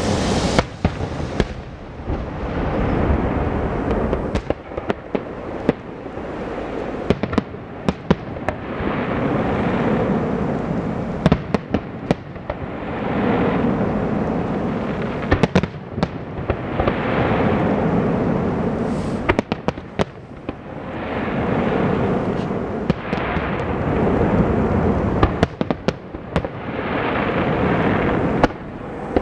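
Aerial fireworks shells bursting: many sharp bangs at irregular intervals over a rushing noise that swells and fades every few seconds.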